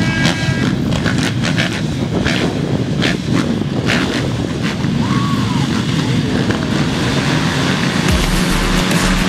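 Motocross dirt bikes running on the track, a dense engine noise with scattered sharp clicks. About eight seconds in it cuts abruptly to music with steady low tones.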